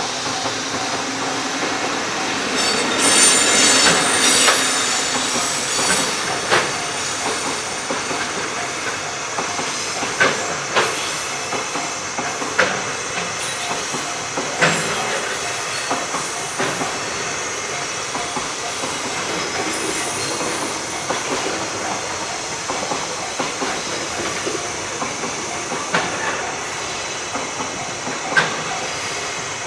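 A JR Freight train rolling past at close range: a steady rumble and hiss of wheels on rail, loudest about three to five seconds in, with sharp, irregularly spaced clacks as the wheels cross rail joints.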